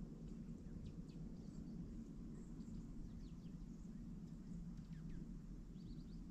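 Faint, scattered high chirps of small songbirds over a steady low outdoor rumble.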